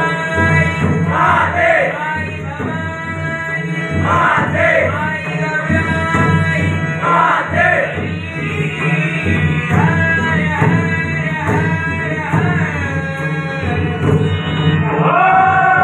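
Malvani devotional bhajan: a group of men sing in chorus over a steady accompaniment, with tabla and a barrel drum keeping the rhythm.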